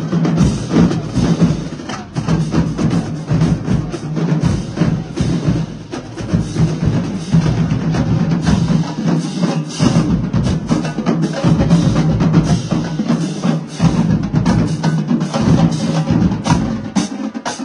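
Marching drumline playing a fast, continuous cadence: snare drums and crash cymbals over low drums. The low drums drop out near the end.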